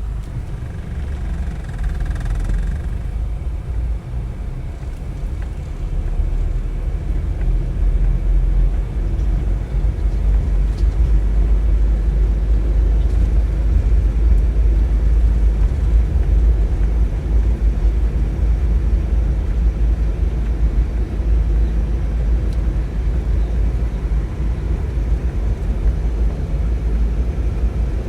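A motor vehicle driving, with a steady low road-and-engine rumble that starts suddenly at a cut and builds slightly over the first several seconds.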